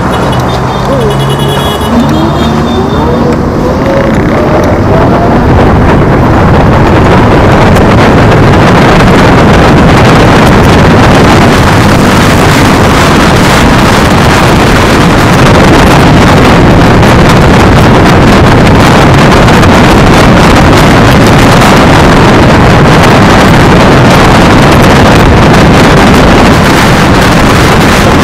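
Heavy wind noise buffeting the microphone of an electric scooter riding at speed: a loud, steady rush that builds over the first few seconds and then holds. Near the start a faint rising whine sounds under it.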